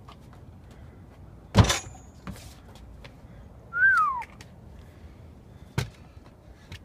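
Parkour landing on a wooden playground deck: a hard thud about a second and a half in, the loudest sound, followed by a few lighter footfalls and knocks on the wooden boards. About four seconds in, a short whistle-like tone falls in pitch.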